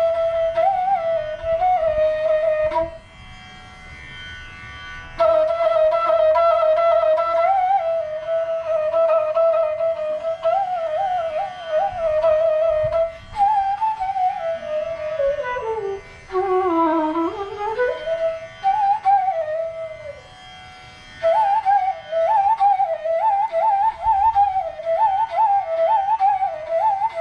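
Bansuri (bamboo transverse flute) playing raag Patdeep. It holds one long note, then plays ornamented phrases with bends, slides slowly down into the low register and back up about halfway through, and ends with quick repeated figures. Twice the flute stops briefly between phrases.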